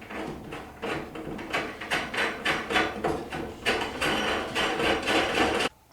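A 17mm nut being run down a threaded rod by hand, making quick irregular metal clicks and rattles that stop abruptly near the end.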